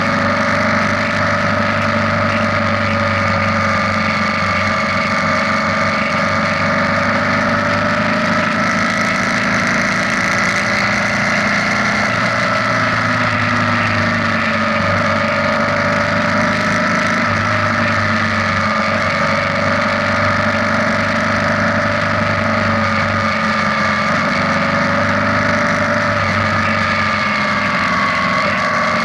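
BMW R nineT's air/oil-cooled boxer twin running at a steady cruise, with wind and road noise and a steady whine that drifts slowly up and down in pitch.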